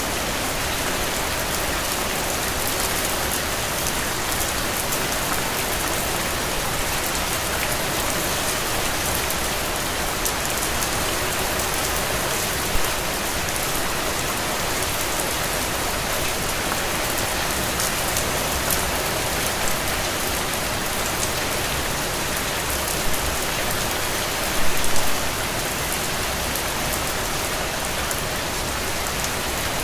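Steady rain falling on a window, an even hiss of drops with a few louder single hits about 13 seconds in and near 25 seconds.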